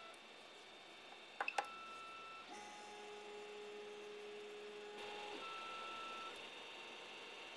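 Creality CR-10S 3D printer's stepper motors whining at a steady pitch as the print head and bed drive to the next bed-leveling corner, in several moves that each hold their own pitch and stop a little after six seconds in. Two sharp clicks sound about a second and a half in, over the steady noise of the printer's fans.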